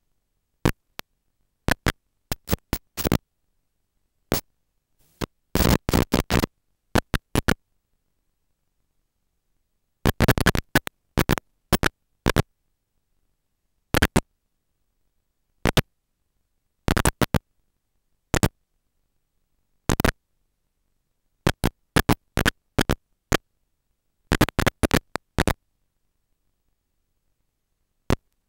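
Short bursts of crackling static at irregular intervals, some single and some in rapid clusters, with dead silence between them: the audio of a 5.8 GHz wireless video link breaking up as the signal fades in and out.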